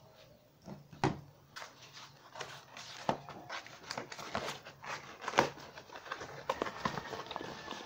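A small cardboard box being handled, turned over and opened: scattered taps, clicks and scrapes, with a sharp knock about a second in and others near three and five seconds.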